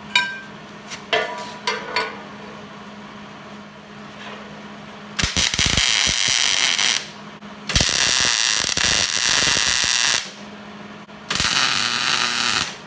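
A few ringing metal clanks, then three bursts of wire-feed arc welding, each a steady crackling sizzle lasting one to two and a half seconds. A steady low hum runs underneath.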